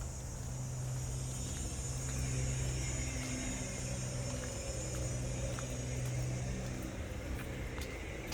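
Steady low hum of road traffic, with a constant high-pitched hiss above it.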